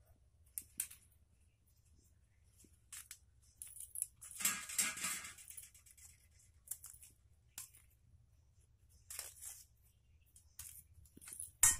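Fresh jute leaves being torn by hand as their stiff midribs are stripped out: a string of short, crisp rips and leaf rustles, with a longer, louder rustle about four seconds in and a sharp rip near the end.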